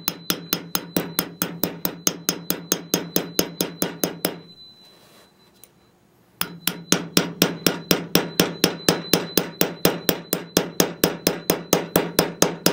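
Small hammer striking a bent, hollow-ground scissor blade laid over a curved steel heel dolly, in rapid, even metallic taps about five a second, with a pause of about two seconds in the middle. The taps are hammering set back into a shear blade that a sharpening wheel bent.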